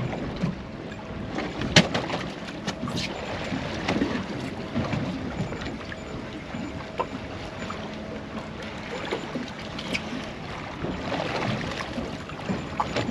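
Wind buffeting the microphone and water slapping against the hull of a drifting boat, with a few sharp clicks about two, three and ten seconds in.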